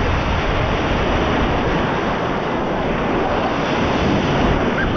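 Ocean surf breaking and washing steadily on the beach, with wind rumbling on the microphone.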